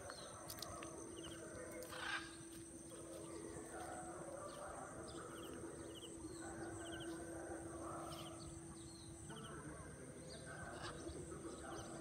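Faint outdoor ambience: a steady high insect drone and a low steady hum, with short faint chirps every second or so.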